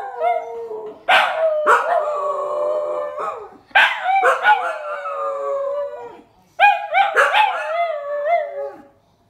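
Two dogs, a tan dingo-like dog and a small shaggy dog, howling together. There are three long wavering howls with short breaks between them.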